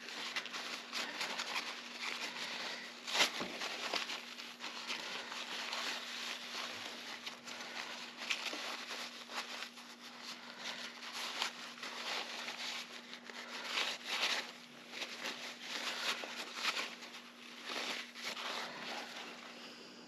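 Paper towel rustling and crinkling as brass combination-lock wheels from a Diebold safe lock are wiped clean, with small sharp clicks of metal parts throughout, the loudest about three seconds in.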